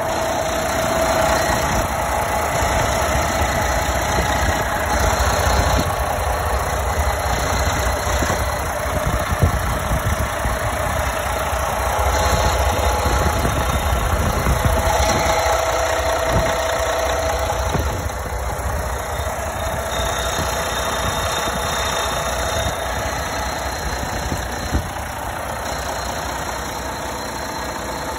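A Navistar Maxxforce 13 inline-six diesel truck engine idling steadily, heard up close from the open engine bay.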